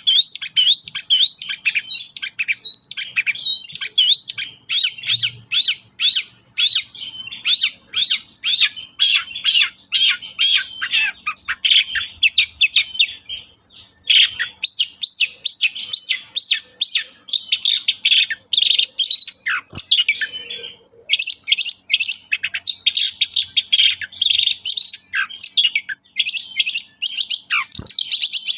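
Long-tailed shrike singing a fast, nearly unbroken stream of high sweeping notes and chattering phrases, with brief pauses about halfway through and again a little later.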